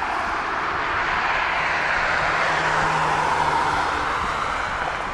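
Boeing 767-300ER's jet engines running at low power as the airliner taxis slowly, a steady rushing hum that swells a little in the middle and eases near the end.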